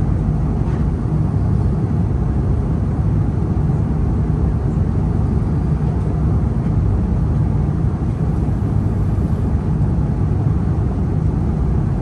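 Steady cabin drone of an Airbus A330 airliner in cruise, heard from inside the passenger cabin: a deep, even rumble that does not change.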